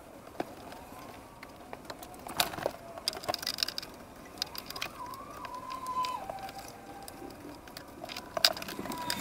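Hands working inside a jet ski's engine bay, fitting a bilge pump and its hose: scattered clicks and knocks of parts and plastic being handled, with a faint wavering squeak-like tone about halfway through.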